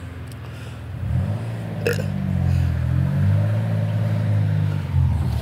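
A 4x4 off-road vehicle's engine revving under load on a muddy trail climb, a low drone that grows louder about a second in and rises and falls in pitch with the throttle.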